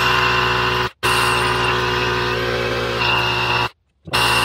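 Air compressor running steadily, with air hissing as it pumps a tractor tyre up towards 22. The sound cuts out abruptly twice, briefly about a second in and for about half a second near the end.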